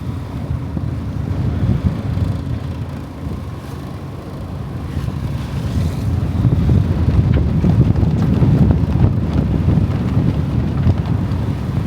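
Strong wind buffeting the microphone aboard a sailing yacht: a dense low noise that grows louder about halfway through.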